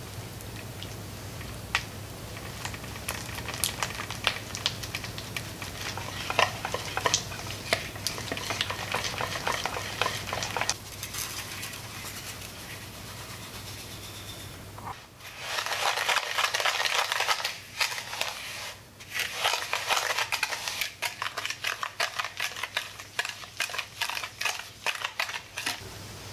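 Soft butter worked with a silicone spatula in a glass bowl: sticky squelches and scrapes. About halfway through, granulated sugar pours in, and a metal balloon whisk starts creaming butter and sugar against the glass, loud gritty scratching strokes, about three a second near the end.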